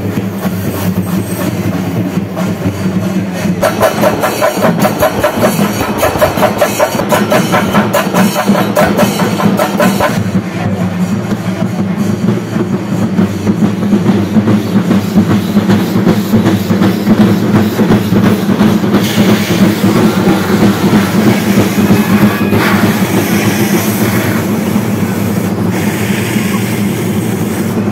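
A temple festival percussion ensemble drumming densely and fast over a steady low hum. The strokes come quickest and loudest between about 4 and 10 seconds in.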